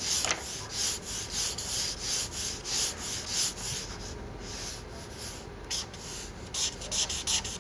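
Marker pen nib rubbing across a sheet of paper in quick repeated strokes, about three a second, with a short lull about halfway through.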